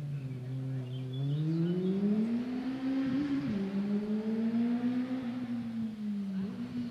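A racing engine accelerating: its pitch climbs steadily for about two seconds, dips briefly, then holds high as it runs on at speed.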